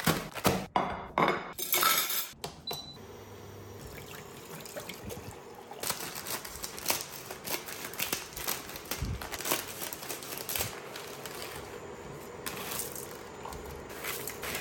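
Kitchen handling sounds: plastic instant-noodle packets crinkling loudly in the first couple of seconds, then quieter snipping and scattered knocks and clinks as a packet is cut open with scissors and dry noodle blocks go into a steel pot.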